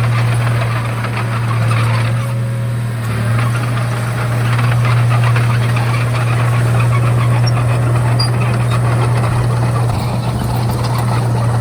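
Diesel engine of a Komatsu D31A crawler bulldozer running steadily, with a constant low hum and a dense clatter over it.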